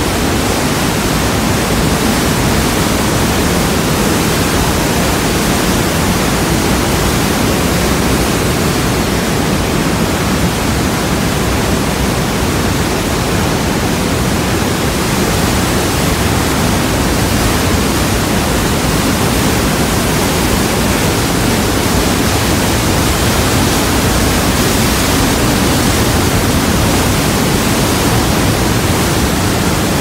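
Waterfall pouring through an enclosed rock gorge: a loud, steady roar of rushing water.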